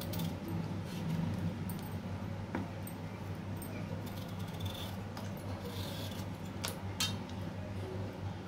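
A knife cutting a peeled raw potato into wedges held in the hand over a steel bowl of water, with a few sharp metallic clicks as the blade and pieces knock against the bowl. A steady low hum runs underneath.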